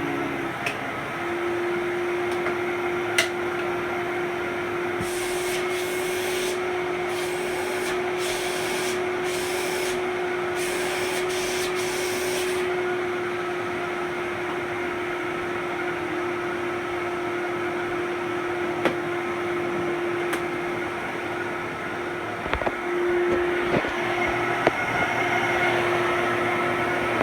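Fantom Thunder vacuum cleaner running steadily, its motor giving a constant whine. Between about five and twelve seconds in, an airy hiss cuts in and out several times. Near the end come a few knocks and clunks.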